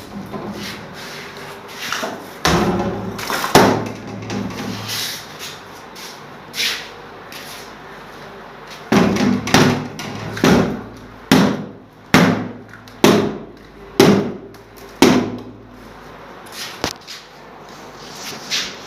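A series of sharp knocks and thuds, most in a steady run of about one a second starting about nine seconds in, with a few scattered ones before and after.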